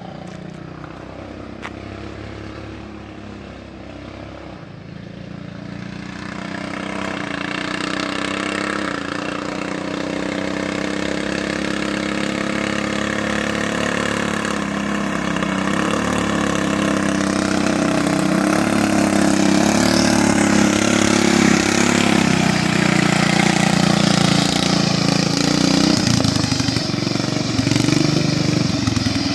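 Small riding-lawnmower engines running in a race. Their drone wavers in pitch and grows steadily louder as the mowers come closer.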